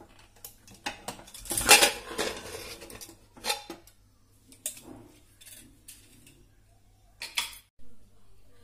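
An aluminium pressure cooker's lid being unlocked and lifted out of the pot once all the pressure has gone: a few metal clanks and scrapes, the loudest and longest about two seconds in.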